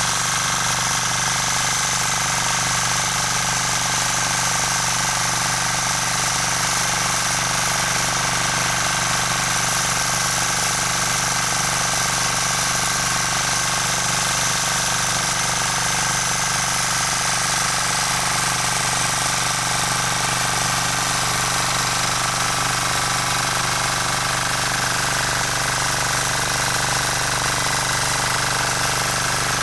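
Rotakt walk-behind rotary tiller's engine running steadily as its tines till the soil, holding an even pitch and level throughout.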